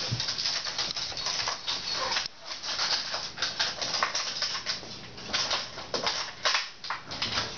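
Irregular rustling and scuffling close to the microphone, from movement and handling of the camera.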